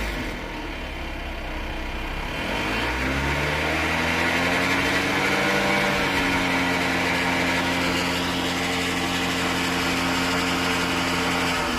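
BMW N20B20 2.0-litre turbocharged four-cylinder engine running: the revs drop at the start, climb again about three seconds in, and are held steady at a raised speed until they fall back at the end. The engine has a noise that the owner found came from a defective balance shaft in the oil pump.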